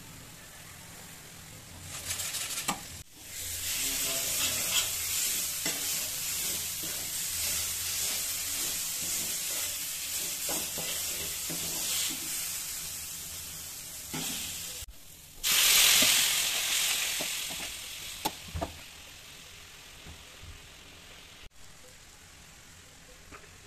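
Spice masala sizzling in hot oil in a pan while a spatula stirs and scrapes it. About two thirds of the way in the sizzling flares up loudly for a couple of seconds, then dies down to a quieter bubbling.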